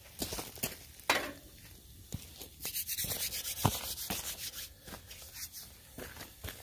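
Wood fire crackling under a grill grate, with irregular sharp pops and a soft hiss for a couple of seconds in the middle.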